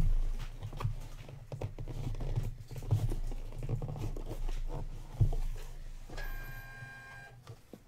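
A cardboard trading-card box being handled, with light scrapes, taps and rustles as its lid is worked loose and lifted off, over a steady low hum. Near the end a short steady pitched tone sounds for about a second.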